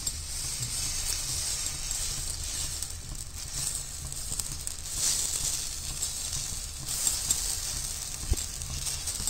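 Wheat-flour chilla batter sizzling steadily on a hot iron tawa as it is poured and spread with a steel ladle, with a soft knock of the ladle a little after eight seconds.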